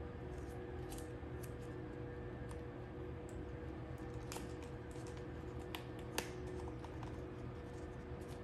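Blue painter's tape and a paper pouch being handled and pressed into place: scattered small crackles and clicks, with a sharper click about six seconds in, over a steady low hum.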